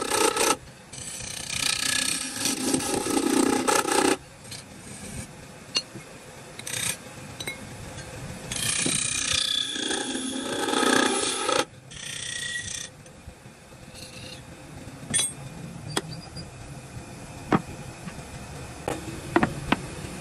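A woodworking tool works wood in several bursts of scraping noise, each lasting a second to a few seconds, through the first two-thirds. Scattered sharp taps and knocks follow near the end.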